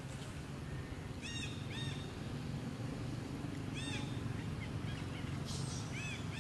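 Short, high chirping calls, about five of them, each rising then falling in pitch, some in quick pairs, over a steady low background.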